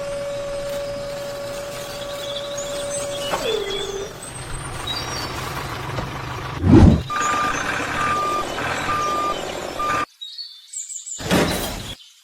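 Truck sounds: a steady whine that drops in pitch about three seconds in, a loud thud near the middle, then a reversing alarm beeping four times at an even pace. The sound cuts off abruptly, followed by one short burst of noise near the end.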